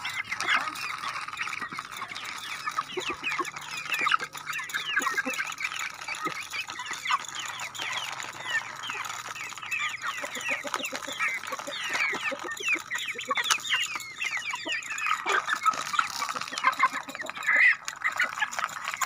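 A flock of young white broiler chickens and ducklings calling all through while they feed: many short, high peeps and clucks overlapping.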